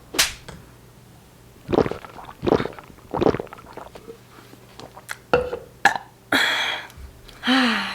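A person chugging water from a cup: three gulping swallows a little under a second apart, a couple of small clicks, then loud breathy exhales near the end after drinking.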